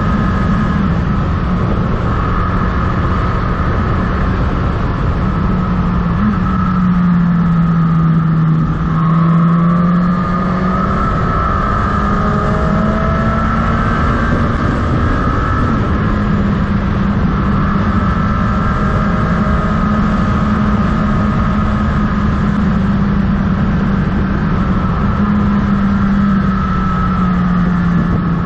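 Motorcycle engine running steadily at cruising speed, with wind rushing past the onboard camera. The engine note drops briefly about eight seconds in and again near the end, then settles back.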